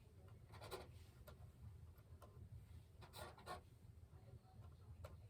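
Near silence with a handful of faint, brief scratchy rustles from handling stiffened crochet work at a tabletop.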